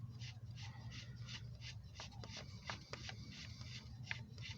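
Faint, irregular light metal clicks and rubbing of a hand tool working out a just-loosened engine mount bolt, over a steady low hum.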